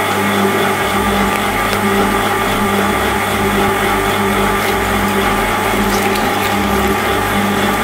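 Twin-shaft shredder's motor running with a steady hum while its interlocking cutter discs turn. A few faint clicks come from about 2 s in, as eggs are fed onto the cutters.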